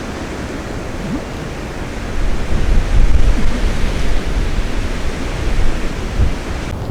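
Gusty wind of about 20 miles an hour, a steady rush that swells into low rumbling gusts on the microphone from about two seconds in.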